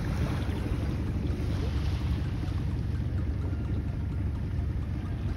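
Wind buffeting the microphone over open sea: a steady, uneven low rumble.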